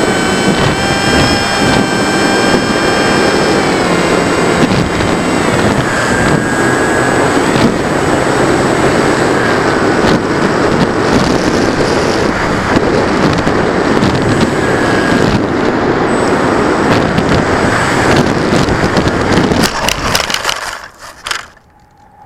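Onboard sound of a TechOne Mercury RC foam plane in flight: loud wind rush over the airframe with the whine of its electric motor and propeller, the whine dropping in pitch about four seconds in as the throttle is eased. Near the end the plane lands, with a few rough knocks and scrapes as it hits the grass, and the noise dies away.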